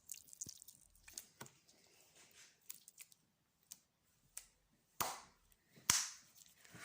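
Slime being stretched, squished and torn by hand, giving a run of sharp pops and clicks, the two loudest about five and six seconds in.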